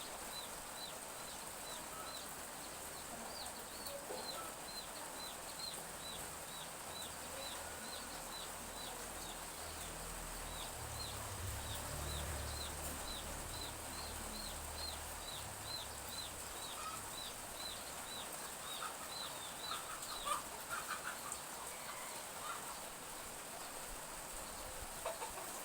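Chicks peeping in a steady run of short, high, falling peeps about twice a second, with a chicken clucking a few times about 20 seconds in. Light drizzle gives a soft steady hiss underneath, and a low rumble rises and fades midway.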